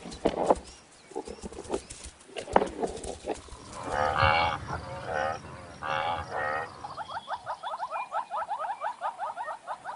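Animal calls: a few drawn-out pitched calls about halfway through, then a fast run of short rising calls, about five a second, to the end.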